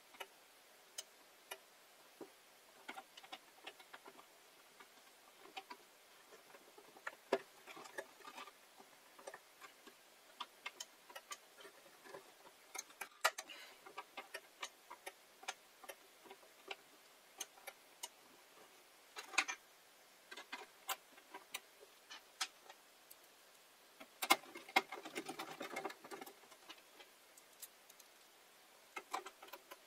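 Scattered small clicks and taps of hands handling small parts and tools during hot plate repair work, irregular rather than rhythmic, with a brief scraping rustle about three-quarters of the way through.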